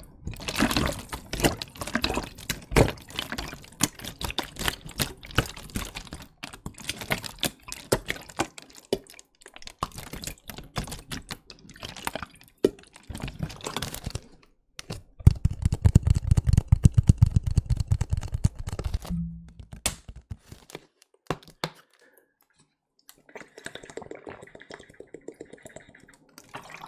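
Plastic mineral-water bottle handled close to the microphone, crackling with many small clicks, then water glugging in the bottle for a few seconds about halfway through. Drinking from the bottle follows near the end.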